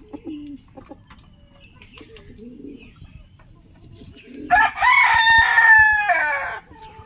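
A rooster crows once, a loud call of about two seconds that begins past the middle and drops in pitch as it ends. Before the crow there is soft, low clucking.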